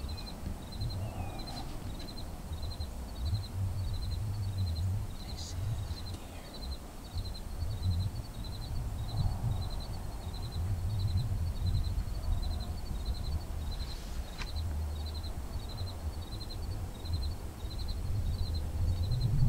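Outdoor ambience: a faint, high chirp repeats about twice a second, over an uneven low rumble of wind on the microphone, with a couple of brief clicks.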